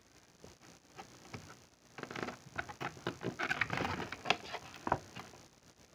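A thick cardboard board-book page being turned and handled: a run of soft taps, rubs and clicks, with a sharper tap about four seconds in and another near five.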